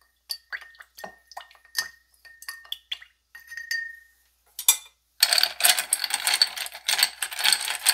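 A wooden spoon stirring and tapping inside a glass mason jar of coffee and sweetened condensed milk: light clicks and scrapes with a faint ringing from the glass. About five seconds in, a dense, continuous clatter begins as ice cubes are handled in a glass.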